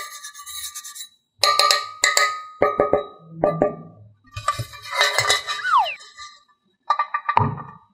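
Short bursts of playful percussive music and sound effects: wood-block and clinking hits with a falling slide-whistle glide about five and a half seconds in, broken up by short dead silences.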